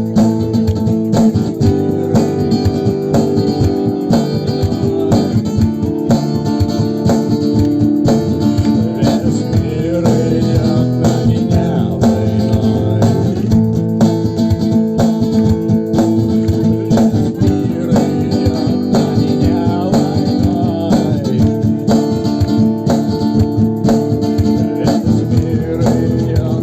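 Acoustic guitar played live through a loop pedal: layered, looped strumming runs steadily under a melody line, as an instrumental passage of the song.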